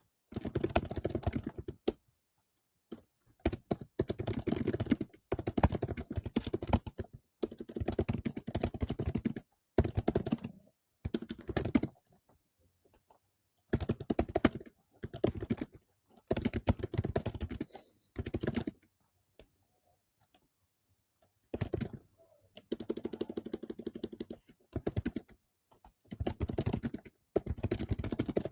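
Typing on a computer keyboard: runs of rapid keystrokes, each lasting a second or two, with short pauses between them.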